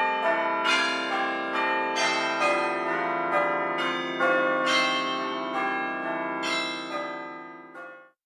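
An iOS ringtone made of bell-like chimes: a run of struck notes, about two a second, ringing over held lower tones, fading away just before the end.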